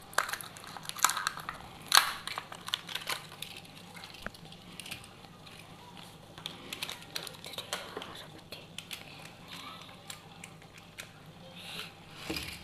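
Hard plastic toy race-track pieces and a small toy car being handled on a table: scattered light clicks and knocks, most of them in the first few seconds.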